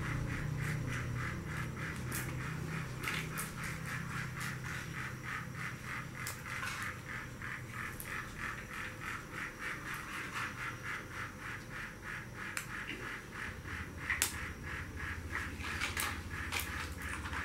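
Battery-powered toy train running on its plastic track, making a rapid, even clicking of about three to four clicks a second.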